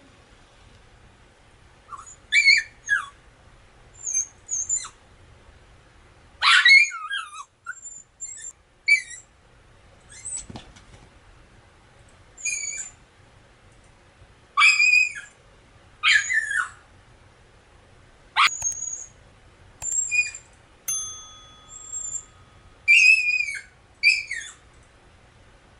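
A dog yelping over and over: short, sharp, high-pitched yelps, many sliding down in pitch, in irregular ones and twos, the loudest about six seconds in.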